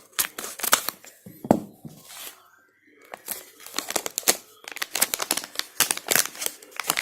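Sealed plastic packet being torn open and crinkled by hand: a run of sharp tearing and rustling noises, with a brief pause between two and three seconds in.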